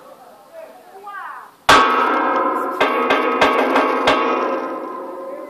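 Loud metallic clanging: struck metal hit hard about a second and a half in, then about five more times over the next two and a half seconds, each strike leaving a ringing tone that slowly fades. Faint voices can be heard before it.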